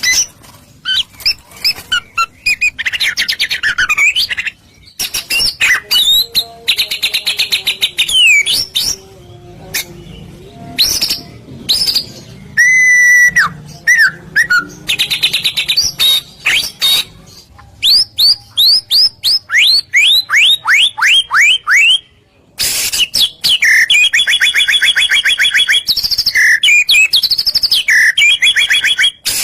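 White-rumped shama (murai batu) singing loudly in varied phrases: clear whistles and fast trills, then a run of quick downward-sliding notes about two-thirds of the way through, and harsh buzzy rattling chatter near the end.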